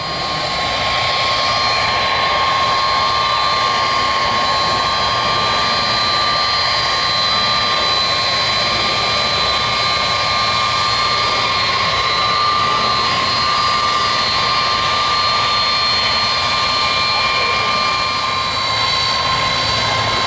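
Turbofan engines of a KC-10 Extender tri-jet tanker running at high power during its takeoff roll. A loud, steady roar carries steady high whining tones.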